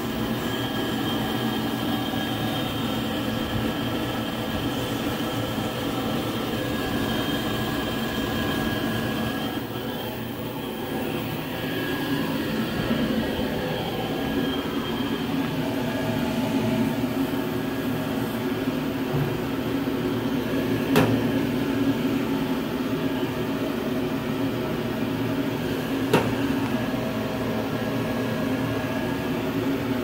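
Steam shrink tunnel line running: a steady mechanical noise from the conveyor, the tunnel's exhaust fan and its steam zones, with several steady tones through it. Two sharp clicks come about five seconds apart in the second half.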